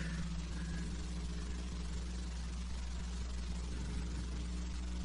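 Quiet room tone: a steady low electrical hum with a faint hiss.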